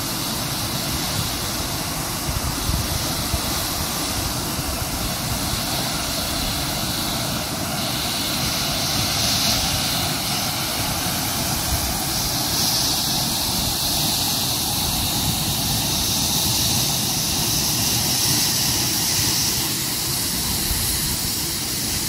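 Steady rushing roar of a tall waterfall plunging into a rocky pool, unbroken and even throughout.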